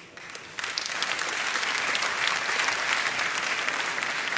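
Arena crowd applauding, starting about half a second in and holding steady as dense clapping.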